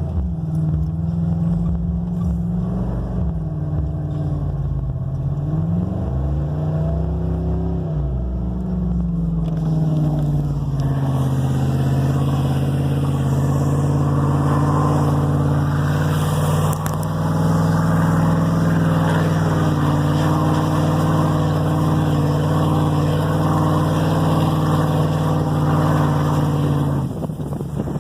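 A 1999 Ford F-150's engine revving up and down several times, then held steady at higher revs for about fifteen seconds with a rushing noise over it, before easing off near the end.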